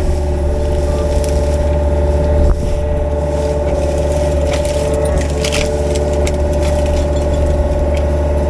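Mini excavator engine running steadily as it works, with scattered scrapes and a sharp knock about two and a half seconds in as the tag rake drags through brush.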